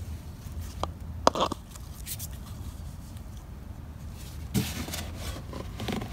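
Hand-handling sounds of a plastic funnel and a shop rag: a sharp click about a second in, then a cluster of rustling and scraping near the end, over a low steady hum.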